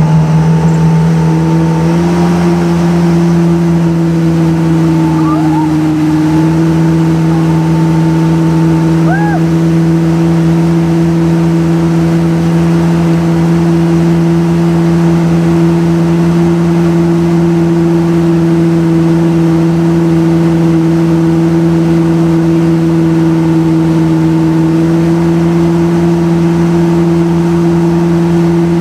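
Motorboat engine running steadily at towing speed, a constant low drone that shifts slightly in pitch a couple of times.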